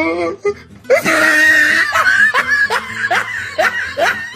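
Comic laughter sound effect: a loud burst of laughing about a second in, then a rapid run of short rising 'ha-ha' giggles, about three a second.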